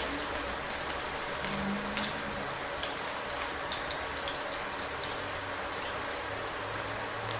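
Hot oil sizzling and crackling in a frying pan, a steady fine crackle, with a low hum coming in near the end.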